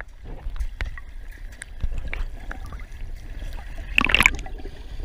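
Seawater sloshing and gurgling around a camera held just under the surface as a racehorse wades through the shallows, with scattered knocks and a louder splash about four seconds in.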